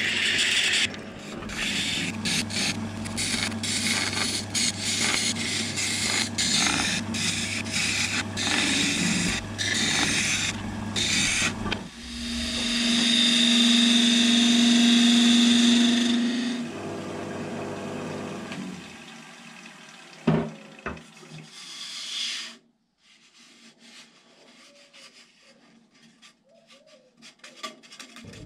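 Wood lathe running with a sanding disc rasping against the spinning cherry-wood goblet, over the motor's steady hum. After about twelve seconds comes a louder steady tone with a high hiss, as a gouge hollows the cup and sends shavings flying. A few sharp knocks follow, then the sound cuts off about three-quarters of the way through, leaving only faint handling clicks.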